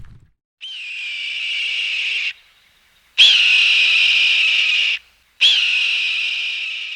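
Three long whistle blasts, each a steady high-pitched tone lasting about a second and a half, starting with a brief upward chirp, with short pauses between them.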